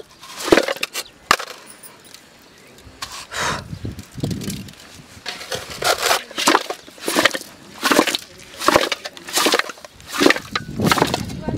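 Raw chicken legs being handled in a large metal pot: an irregular string of sharp knocks and clatter as the pieces are turned and the pot is tipped by its rim.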